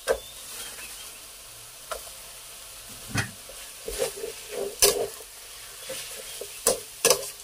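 Rice noodles and green vegetables frying with a steady sizzle in a hot wok, while a metal spatula scrapes and clanks against the wok about seven times as they are tossed.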